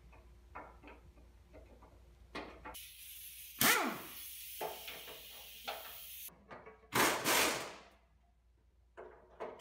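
Pneumatic impact wrench loosening the nuts that hold the rear axle to the frame: a long run of about three and a half seconds starting near three seconds in, loudest about a second into it, then two short bursts near seven seconds.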